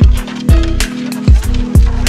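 Background music with a steady beat of deep bass drum hits, about two a second.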